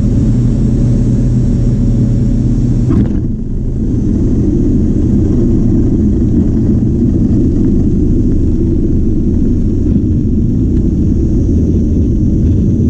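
Cockpit noise of a single-engine propeller airplane landing: a steady engine hum, which changes suddenly about three seconds in to a broader low rumble as the plane rolls out on the runway.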